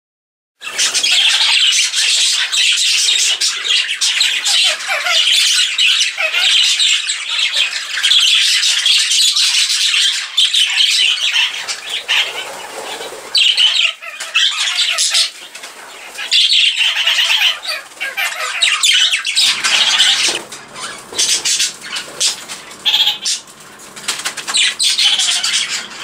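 A flock of budgerigars chattering and squawking nonstop in a dense, warbling jumble. A low steady hum joins in about three quarters of the way through.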